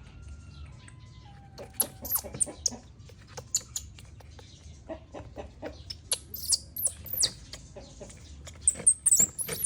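Baby monkey crying: clusters of short, high-pitched squeaks and falling chirps, starting about two seconds in and loudest near the end.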